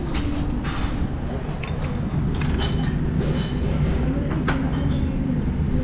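Restaurant table ambience: a steady low rumble with a few sharp clinks of dishes and cutlery and faint voices in the background.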